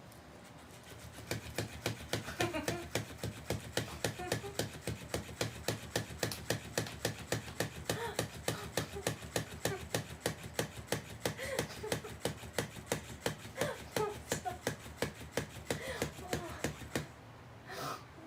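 Battery-powered moving toy fish clicking rhythmically as its motor flaps it, about three clicks a second; it starts about a second in and stops shortly before the end.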